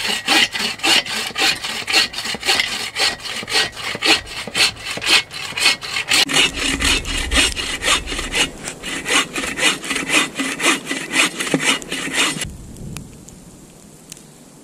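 Hand saw cutting through firewood with quick, even back-and-forth strokes. The strokes stop about two seconds before the end.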